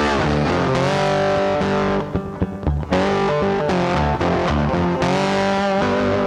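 Background music led by distorted electric guitar, holding and sliding between notes, with a brief drop-out about two seconds in.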